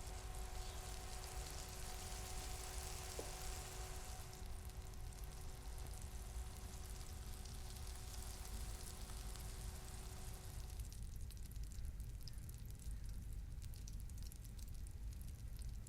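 Food sizzling and crackling in hot oil in a frying pan, a steady fine spitting crackle. A faint steady hum underneath stops about two-thirds of the way through.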